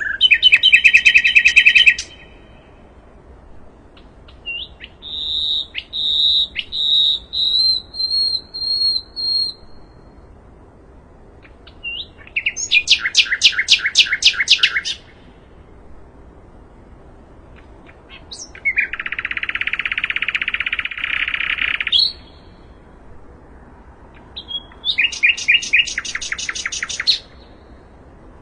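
A common nightingale sings a string of separate phrases with short pauses between them. There is a rapid trill, then a row of about seven clear whistled notes, then another fast trill. This is followed by a dense buzzy rattle lasting about three seconds, and a final rapid trill near the end.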